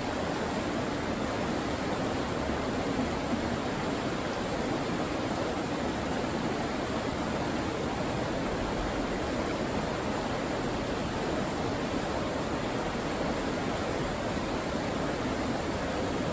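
River rapids rushing steadily over rocks, a constant even sound of white water.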